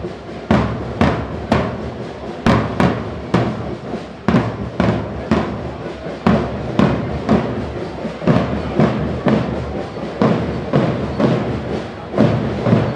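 Marching band drums beating a steady march rhythm, about two strong beats a second.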